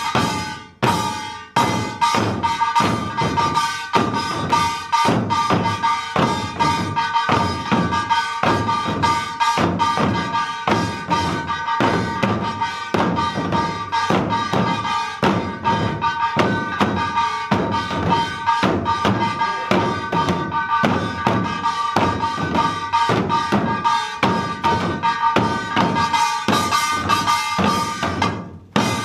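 Korean barrel drums (buk) beaten together by a troupe of drum dancers in a fast, even rhythm, with a steady ringing tone over the beats. The beating briefly breaks off near the end.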